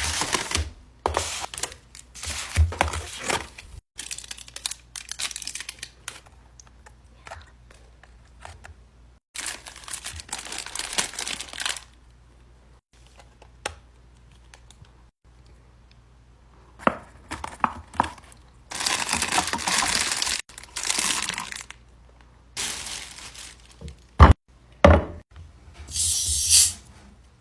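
Packaging crinkling and tearing in irregular bursts, with a quiet stretch of a few seconds midway and two sharp knocks near the end.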